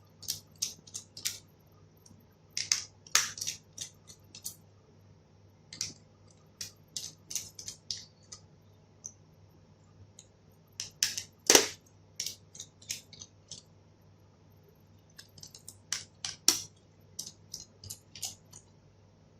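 Screwdriver and small screws clicking and scraping as the laptop battery's screws are taken out: irregular sharp clicks in clusters, with one louder knock near the middle.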